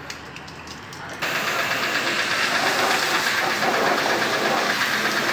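Pressure washer spraying water onto an air-conditioner condenser coil: a steady hiss that starts suddenly about a second in.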